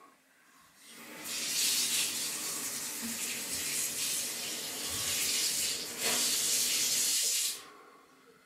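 Water running in a steady, loud hiss for about six seconds, dipping briefly, then cut off suddenly.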